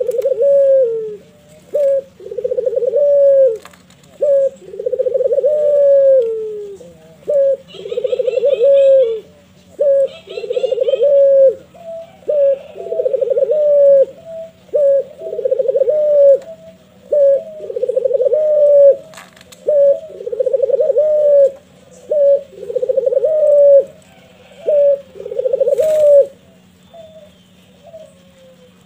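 Barbary dove (puter) cooing over and over: a short note followed by a longer rolling coo, repeated about every two seconds, stopping shortly before the end.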